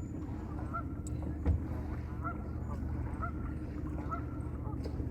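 Goose honking over and over, about twice a second, over a steady low hum.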